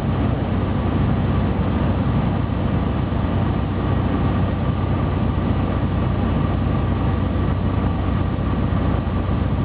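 Evektor Eurostar microlight's piston engine and propeller droning steadily, heard from on board with airflow noise mixed in.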